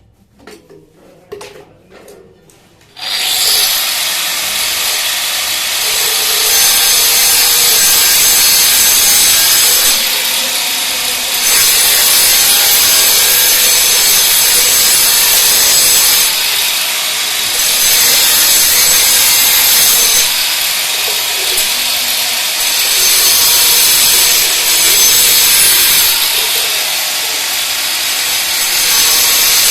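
A few light clicks, then about three seconds in an electric power tool starts and runs loud and continuous with a high whine, the whine easing off briefly four times as the load on it changes.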